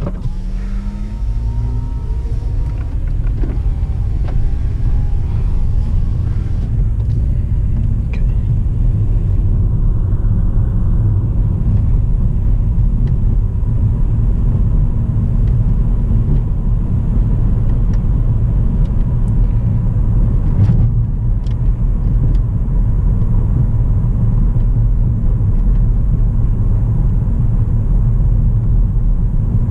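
2009 Volkswagen Jetta 2.5-litre five-cylinder engine rising in pitch as the car accelerates over the first few seconds, then a steady low rumble of engine, tyres and wind as it drives on.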